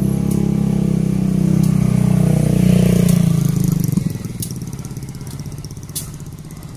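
A motorcycle engine passing close by, loudest two to three seconds in and falling away after about four seconds. A diesel locomotive's engine runs steadily underneath, with a few sharp clicks in the second half.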